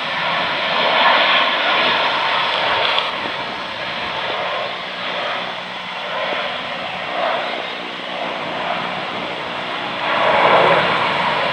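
Jet engines of an Airbus A320-family twin-jet airliner during landing and rollout, a steady loud rushing roar that eases a little mid-way and swells again near the end.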